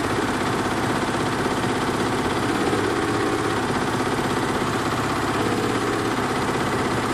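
Tajima computerised embroidery machine running, its needle mechanism stitching with a fast, steady, even clatter.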